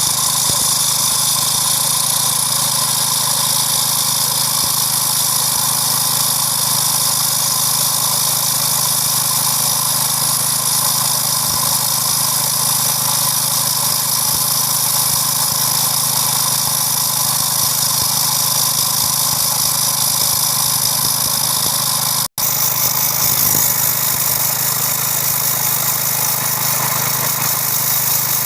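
Small engine of a core drill machine running steadily at a constant pitch. The sound cuts out for an instant about 22 seconds in.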